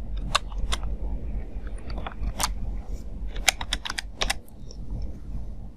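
Typing on a computer keyboard: separate key clicks at an uneven pace.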